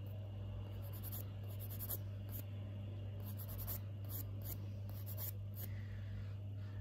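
Hand nail file scratching over a fingernail in short, irregular strokes, taking off a small bit missed in prep, over a steady low hum.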